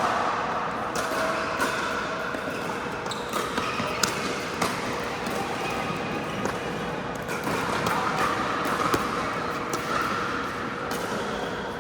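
Pickleball rally: paddles hitting a plastic pickleball and the ball bouncing on the court, as irregular sharp pops, with a steady hum underneath.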